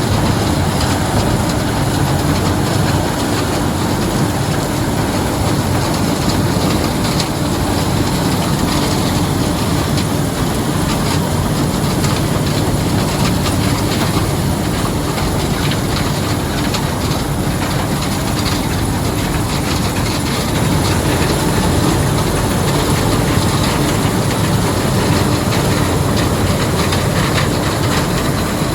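White 7300 combine running steadily while harvesting corn, a loud, continuous mechanical din with a rattling, clattering texture.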